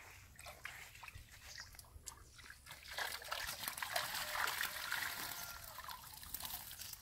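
Water splashing and trickling as a folding mesh crayfish trap is hauled by its rope out of the water, streaming off the net; the trickling grows louder about three seconds in as the trap comes clear.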